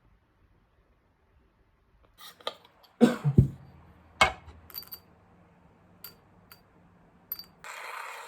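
Several sharp clinks and knocks of hard objects being handled and set down, the loudest two about a second apart. Near the end a steady rushing noise starts.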